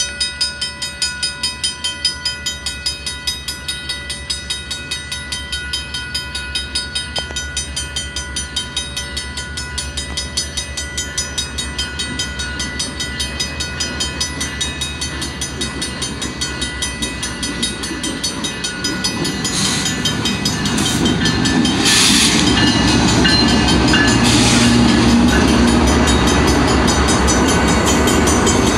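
Mechanical level-crossing bell ringing with steady, evenly spaced strikes. About two-thirds of the way in, a Canadian Pacific EMD GP38-2 diesel locomotive comes up to the crossing and its running noise grows loud, covering the bell as it passes.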